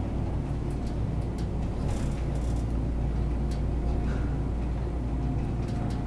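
Montgomery passenger elevator car travelling up the hoistway at speed: a steady low rumble of the ride with a faint steady hum over it. A few light ticks and rattles come and go.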